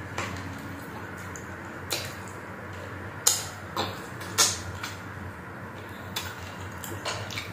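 Close-up eating sounds: lips and fingers smacking wetly as sauce is sucked off the fingers, with about half a dozen sharp smacks, the loudest two in the middle.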